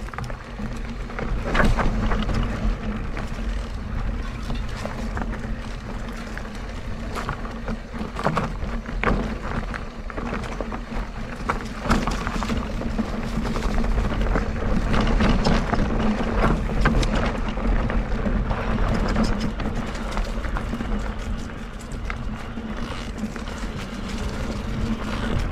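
Mondraker Crafty Carbon RR electric mountain bike ridden along a dirt trail: steady tyre and rolling noise with frequent short knocks and rattles from the bike over rough ground.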